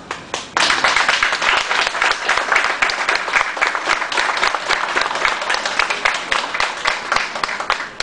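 Audience applauding: many hands clapping together, starting about half a second in and thinning out near the end.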